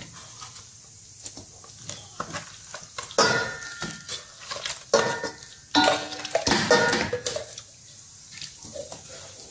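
Raw chicken pieces being dropped and pushed into a stainless steel mixing bowl: irregular knocks and clinks against the metal, several followed by a brief ringing of the bowl, heaviest around three and five seconds in and again between six and seven seconds.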